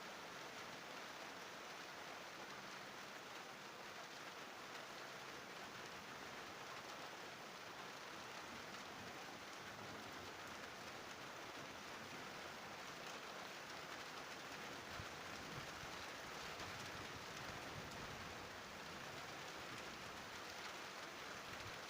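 Steady rain falling in a thunderstorm, an even hiss that grows slightly louder in the second half.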